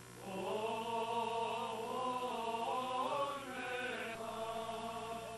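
Armenian liturgical chant: two long sung phrases of held, slowly moving notes, the second beginning about three and a half seconds in.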